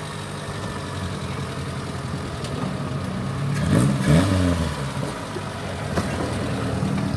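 Off-road vehicle engine running steadily, then revving up briefly about four seconds in.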